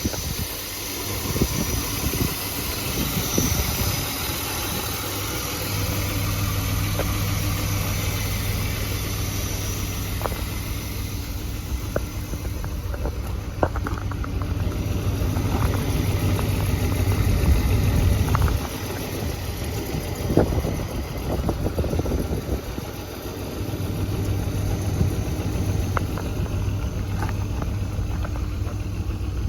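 BMW E34 520i's 2.0-litre straight-six engine running steadily at idle just after a cold start, with a few faint ticks over the running sound.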